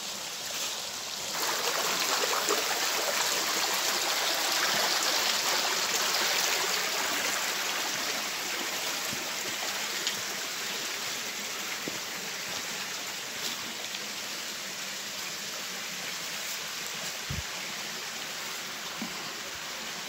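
A small woodland stream trickling and splashing over rocks. The rush of water grows louder about a second in and eases off again after several seconds.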